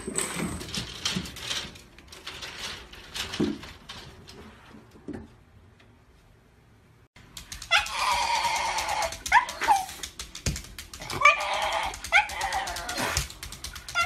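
Black-and-tan Shiba Inu vocalizing: a long whining cry starting about halfway through, then several shorter cries with quick rising yelps. Faint knocks and rustles before it.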